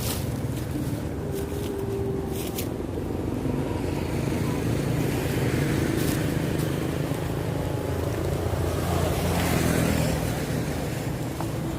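Small motorbike engine running steadily under a rushing road and air noise.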